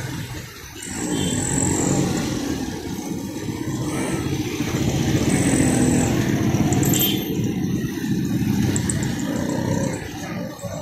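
Busy street traffic: the engines of auto-rickshaws and motorcycles running as they pass at low speed, a dense, steady engine din.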